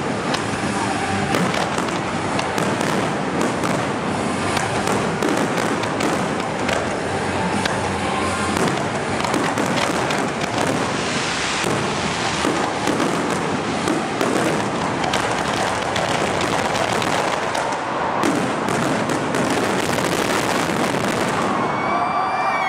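Aerial fireworks display in full barrage: a dense, unbroken rattle of many overlapping bangs and crackles.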